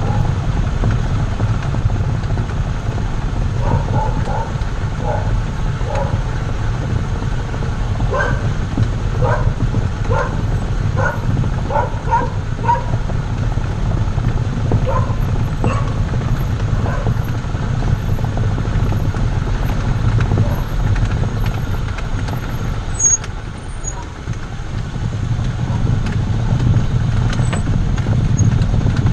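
Chevrolet Zafira running, a steady low engine and road rumble. A string of short, sharp sounds comes through it for several seconds in the first half.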